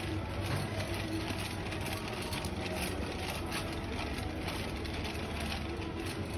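Metal wire shopping cart rolling across a smooth store floor: a steady low rumble from its wheels with light rattling of the wire basket.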